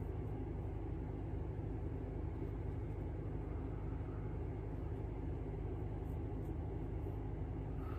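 Steady low hum with a faint hiss: background room tone, with no distinct events.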